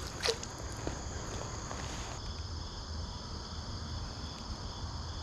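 Steady high-pitched insect chorus, which turns into a faster pulsing drone about two seconds in, with one short sharp sound about a quarter second in.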